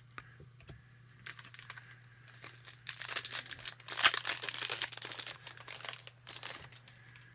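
A Topps trading card pack's wrapper being torn open and crinkled, the crackling building up and loudest around the middle, then easing off.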